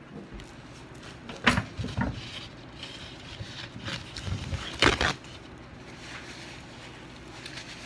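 Handling noises as a paper napkin is fetched: a couple of sharp knocks about a second and a half and two seconds in, then a louder, short rustle of paper about five seconds in.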